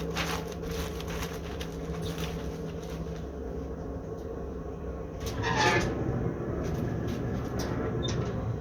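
Handling noise of foil-wrapped pork ribs being set on a smoker: scattered rustles and knocks, with a louder scrape about five and a half seconds in, over a steady low hum.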